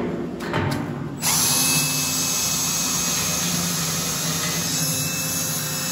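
Cordless drill boring through rusty steel plate with a twist bit, enlarging a pilot hole. After about a second of lighter, uneven noise as the bit starts, it settles into steady cutting with a faint high whine.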